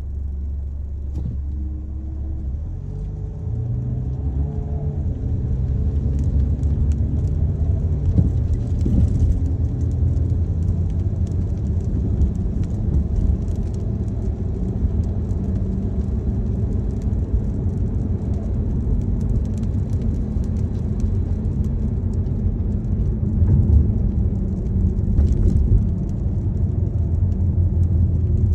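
Car being driven: low engine and road rumble from inside the cabin, building a few seconds in and then holding steady.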